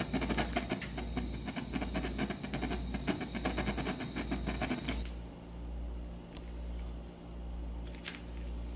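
Butane torch flame hissing and crackling as it heats a sugar piece, cut off abruptly about five seconds in. A low steady hum remains afterwards.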